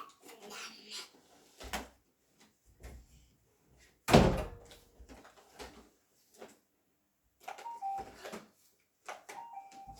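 A few scattered knocks and thuds, the loudest about four seconds in.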